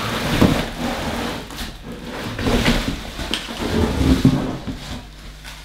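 Cardboard box rubbing, scraping and rustling as it is slid up and off a plastic-wrapped washing machine, with a few sharper knocks; the noise dies down near the end.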